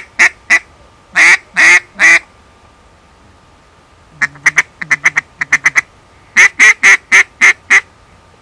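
Mouth-blown duck call sounding a quacking sequence. It starts with a few short quacks and three longer drawn quacks, then gives a rapid chattering run about four seconds in, and ends with a string of six evenly spaced quacks.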